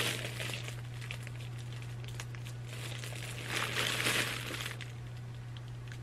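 Quiet room with a steady low hum, faint crinkling and rustling, and a soft breathy rustle about four seconds in.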